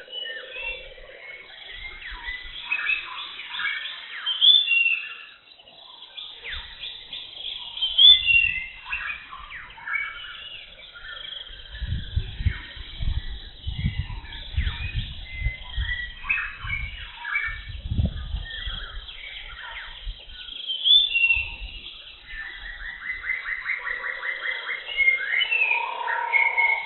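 Wild birds chirping and calling in a dense, overlapping chorus, with a fast trill near the end. Low thuds and rumbling run from about halfway through for several seconds.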